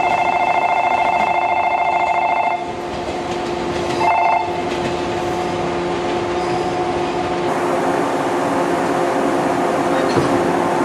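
An electric bell rings steadily, stops suddenly after about two and a half seconds, and rings again briefly a second and a half later. After that comes the steady running noise of a 189-series electric train, with a held hum.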